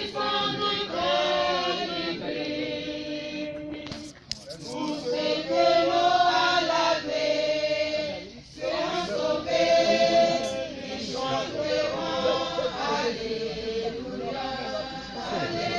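A crowd singing together unaccompanied, men's and women's voices in long held phrases, with short breaks about four and eight seconds in.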